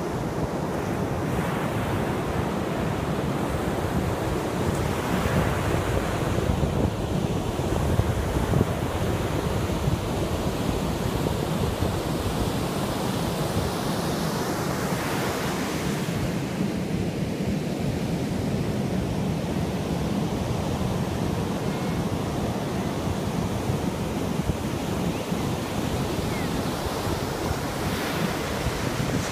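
Sea surf breaking on a sandy beach: a steady rushing wash that swells louder a couple of times as bigger waves come in, with wind rumbling on the microphone.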